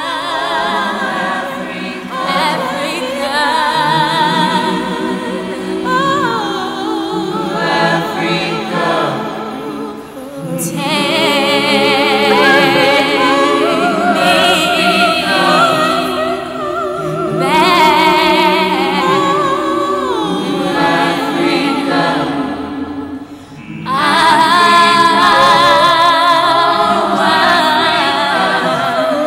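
Choir singing a cappella: several voices with vibrato in long held phrases, with two short breaks between phrases.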